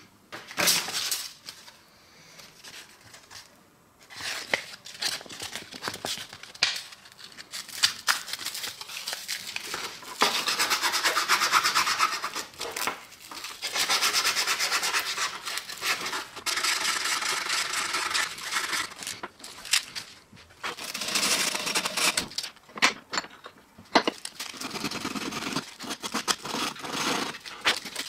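Small metal knife parts rubbed by hand with an abrasive: long stretches of steady scraping, broken by short pauses and the clicks and knocks of parts being handled.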